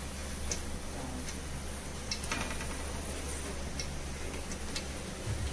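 Ghee and oil heating in a large steel pot, giving off faint, irregular crackles and ticks over a steady low hum.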